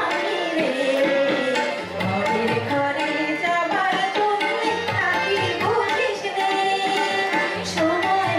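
A woman singing a song live into a microphone, accompanied by tabla drums keeping a steady rhythm.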